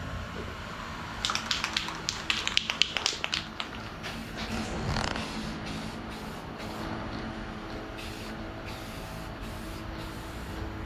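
Aerosol spray paint can shaken, its mixing ball rattling quickly for about two seconds, then sprayed in short hissing bursts.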